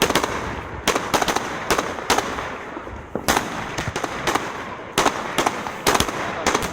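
Fireworks display: a rapid, irregular series of loud bangs from exploding aerial shells, each followed by crackling and echo, over a continuous rumble of more distant bursts.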